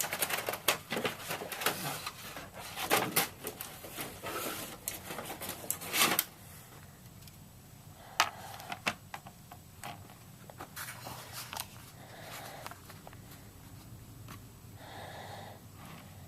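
Small clicks and taps of a plastic model airliner and its display stand being handled and fitted together, dense for about the first six seconds, then scattered.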